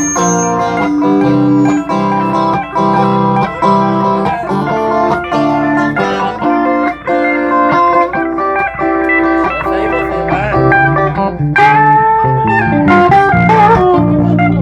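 Music played on guitar: a run of plucked notes over a steady bass line. In the last few seconds the higher notes bend and slide in pitch.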